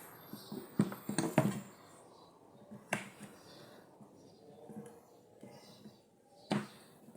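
Clicks and light knocks of a DeWalt drill's plastic housing being handled and checked after the cover halves are fitted together. A cluster of sharp clicks comes about a second in, then single clicks near three seconds and six and a half seconds.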